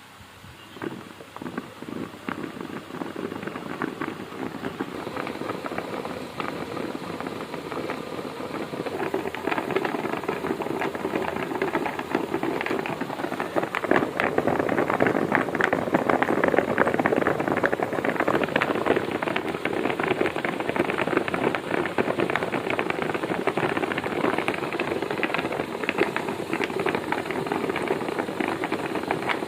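Homemade ball mill running: the jar's grinding media tumble with a dense, continuous rattle over the hum of its 775 DC motor and belt drive. It starts about half a second in and grows louder over the first fifteen seconds or so, then runs steadily.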